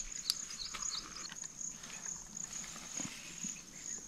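Insects trilling steadily in a high-pitched pulsing chorus, with a few soft clicks and rustles of handling close by.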